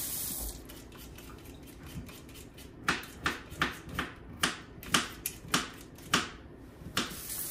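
Hand vegetable peeler scraping along a raw potato in a quick run of about a dozen short, sharp strokes that begin about three seconds in.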